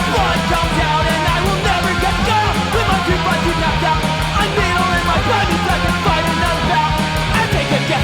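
Loud punk rock music with electric guitar, drums and singing.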